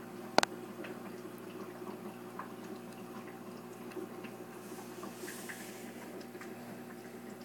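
Aquarium equipment humming steadily, with faint dripping and trickling water and scattered small ticks; one sharp click about half a second in.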